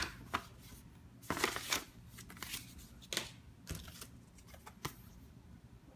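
Paper and cardboard packaging being handled during an unboxing: irregular rustles and light scrapes, with a sharp click at the start.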